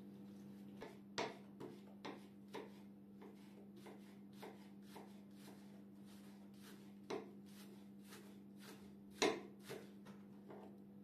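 Kitchen knife chopping spring onions on a wooden cutting board: irregular sharp taps of the blade on the board, one or two a second, two of them louder, about a second in and near the end, over a steady low hum.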